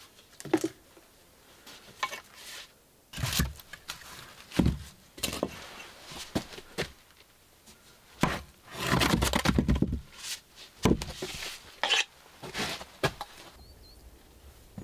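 A run of irregular knocks, clicks and scrapes from things being handled, with a longer scraping rush about eight seconds in.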